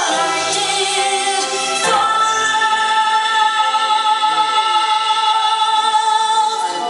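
A woman singing live into a microphone over instrumental backing, holding one long note from about two seconds in until shortly before the end.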